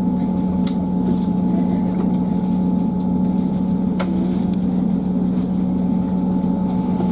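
Class 158 diesel multiple unit heard from inside the carriage: a steady low drone from its underfloor diesel engine, with a fainter steady whine above it and two sharp clicks, the second about four seconds in.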